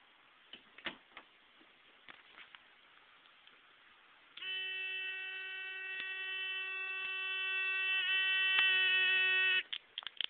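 Homemade door burglar alarm sounding: a steady electric buzzing tone starts suddenly, runs for about five seconds growing gradually louder, then cuts off abruptly. A few light clicks come before it and a quick run of clicks right after it stops.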